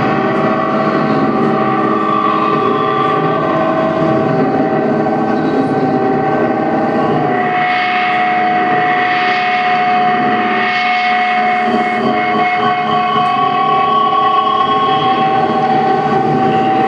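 Live electronic drone music from a synthesizer setup that includes a Moog unit: layered held tones over a dense wash, steady in loudness. One tone is held from about six seconds in, and brief swells of higher noise come through the middle.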